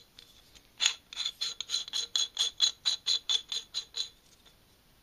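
A quick, even run of small metallic clicks, about four or five a second, as a castle nut is spun onto the threads of an AR-15 buffer tube. The clicks start about a second in and stop about a second before the end.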